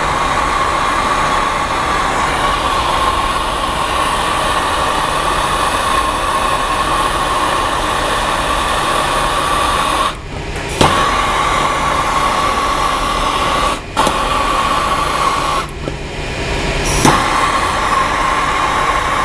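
Handheld gas torch flame burning with a steady roaring hiss while heating a copper pipe fitting for sweat-soldering. The flame cuts out briefly three times in the second half and comes back on, twice with a sharp click.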